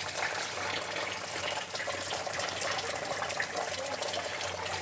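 Steady rain falling, an even hiss of water with scattered small drop ticks.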